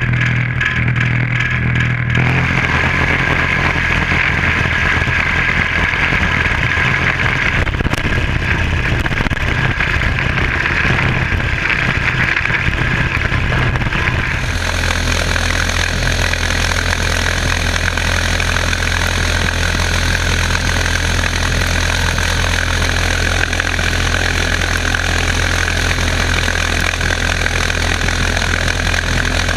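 Homemade pulse jet engine running continuously as it drives an ice boat, a loud steady drone with a strong low pitch. Its tone changes abruptly about halfway through.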